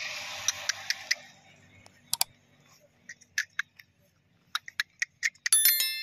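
Like-and-subscribe animation sound effects: a scatter of short, sharp mouse-click ticks, then a bell-like notification chime ringing briefly near the end. A soft hiss fades out during the first second.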